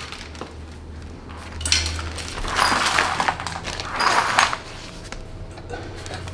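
Rustling and light clattering as hands handle fittings and packaging at the back of a dishwasher, in a few short bursts over a steady low hum.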